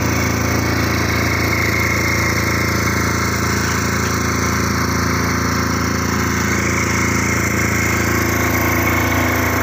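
Small portable generator engine running steadily at a constant speed.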